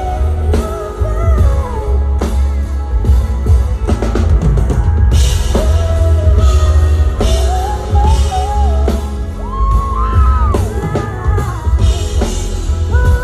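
A band playing a pop-rock song with a singer: a sung melody over drums, heavy bass and guitar.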